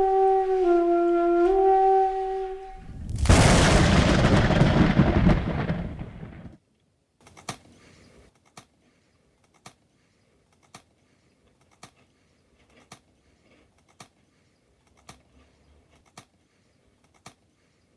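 Edited-in sound effects. A short flute-like tune plays for a few seconds, then a loud noisy blast hits and fades away over about three seconds. After that come about ten sharp ticks, roughly one a second, like a clock.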